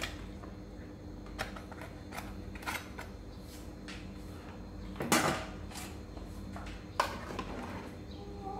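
Kitchen handling sounds: light clicks and knocks of a knife and plastic tofu tray as tofu is cut by hand over a metal pot and the utensils are set down, with two louder clatters about five and seven seconds in. A faint steady hum runs underneath.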